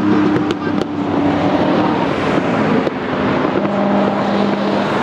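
Supercar engines running, with steady engine tones over a haze of noise and a few sharp clicks about half a second in.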